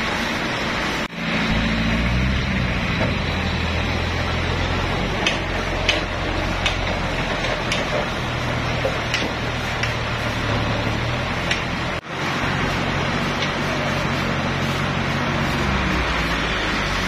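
Toyota forklift engine running steadily under a light load, with a few sharp ticks in the middle stretch.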